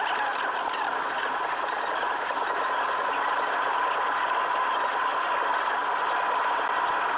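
Car cabin noise at motorway speed, about 120 km/h: steady road and tyre noise with a constant whine.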